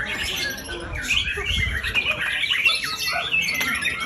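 White-rumped shama singing: a continuous, rapid stream of varied whistles, trills and harsher squawky notes.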